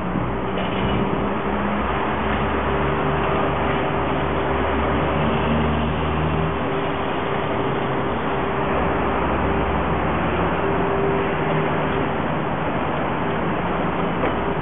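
City street traffic: vehicle engines and road noise, with a constant hum and a deeper engine drone from about three to ten seconds in.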